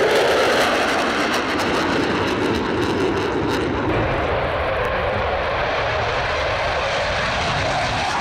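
A pair of Dassault Mirage 2000 fighter jets flying past, their jet engines giving a loud, steady roar that drops a little in pitch as they go by.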